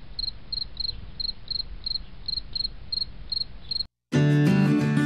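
Cricket chirping, about three short chirps a second over a faint hiss. It cuts off just before four seconds in, and after a brief gap music starts.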